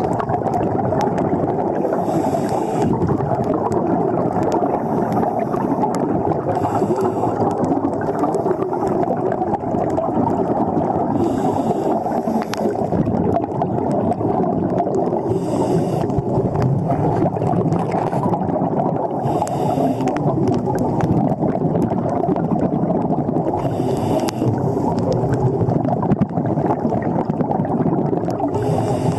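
Underwater sound of a scuba diver breathing through a regulator: a steady dense rush of water noise, with a short hiss of breath about every four to five seconds.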